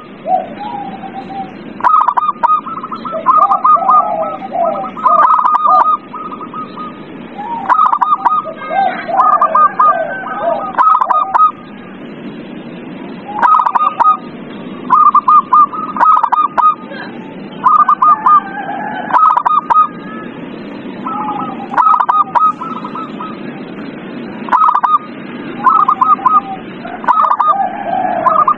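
Zebra doves (perkutut) cooing: short phrases of rapid, stuttering notes that repeat every two to three seconds, over a steady low background noise.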